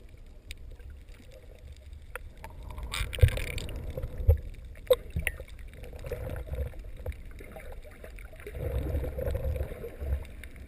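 Muffled water sounds heard through a GoPro's waterproof housing held underwater: a low rumble of water moving and bubbling, with a brief hiss about three seconds in and two sharp thumps soon after.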